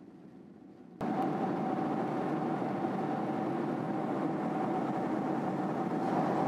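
Steady cabin noise inside a Boeing 747 airliner in flight: engine and airflow rush with a steady mid-pitched hum. It jumps suddenly louder about a second in.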